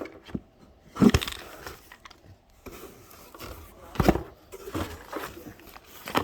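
Handling noise from a paracord dispenser canister being turned over and opened: irregular knocks and scrapes, the loudest knock about a second in and another about four seconds in.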